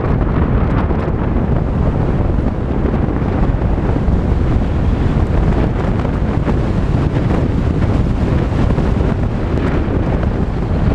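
Volkswagen Tiguan driving along a dirt road: a steady low rumble of tyres and road noise, with wind buffeting the microphone.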